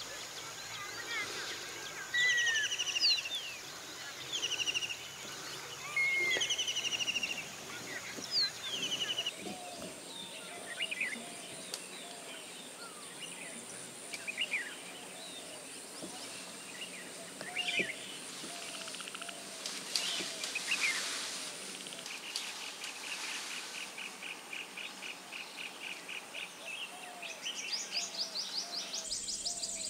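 Forest ambience: many birds calling with short chirps, whistles and trills. A steady high insect whine joins about a third of the way through. Rapid pulsing trills come near the end.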